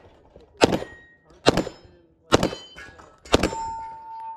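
Four Glock pistol shots a little under a second apart, each followed by steel targets ringing from the hits; the ring after the last shot is held for almost a second.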